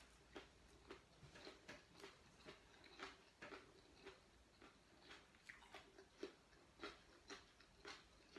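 Faint chewing of a mouthful of sticky rice: soft, irregular mouth clicks, about two or three a second.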